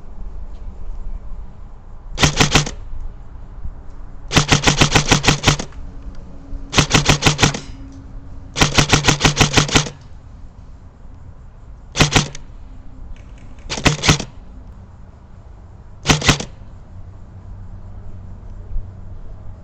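Airsoft gun firing seven short full-auto bursts of rapid, evenly spaced shots, the longest about a second.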